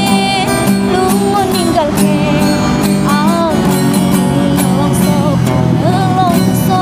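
A woman singing a slow melody with vibrato, accompanied by an acoustic guitar.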